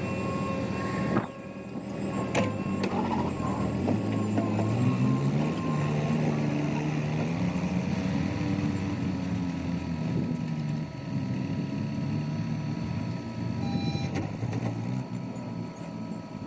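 Heavy diesel engine of the loading machinery running, its pitch rising about four seconds in as it is revved under load, then easing back down.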